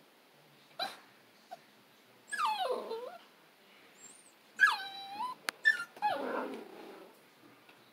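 Ten-week-old beagle puppy whining and whimpering in several separate falling cries, the puppy stuck on top of a storage box and unsure how to get down.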